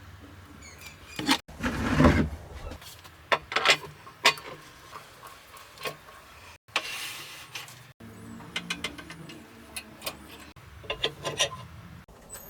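Wood being handled and worked by hand: scattered sharp knocks and clicks with stretches of rubbing and scraping, broken by several abrupt cuts.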